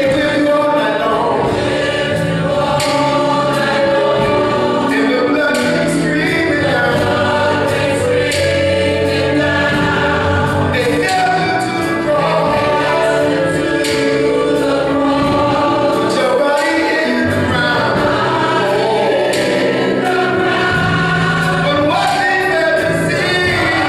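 Gospel choir singing behind a male lead singer, with instrumental accompaniment: bass notes and a steady beat.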